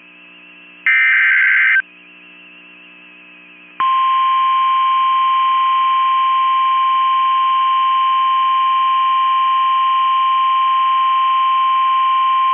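Emergency alert tones from a NOAA Weather Radio broadcast. About a second in there is a one-second burst of the warbling digital data header. About four seconds in, the steady single-pitch alert tone, near 1050 Hz, starts and holds for about nine seconds, announcing a severe thunderstorm warning.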